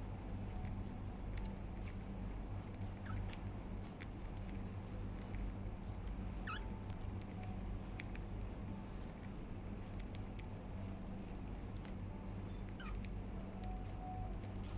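Budgies nibbling and pecking at lettuce, giving scattered soft clicks, with a few brief chirps over a steady low hum.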